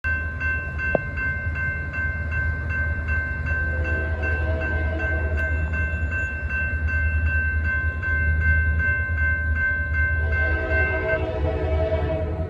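Railroad crossing warning bell ringing in rapid, even strikes while the crossing gates come down; it stops near the end. An approaching locomotive's horn sounds faintly partway through, then louder near the end, over a low rumble.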